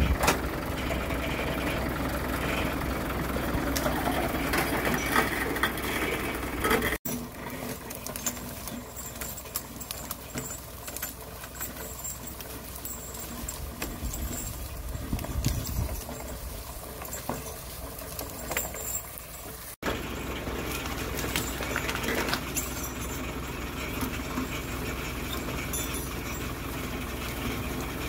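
Tractor engine running steadily at idle, a low hum that drops back for a stretch in the middle, with small clicks and crackles of dry brush.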